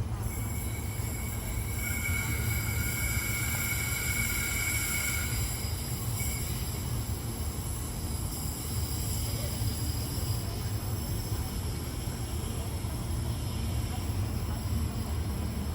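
Queensland Rail electric suburban train at a station platform: a steady low rumble with high whining tones, two of which stop about five seconds in.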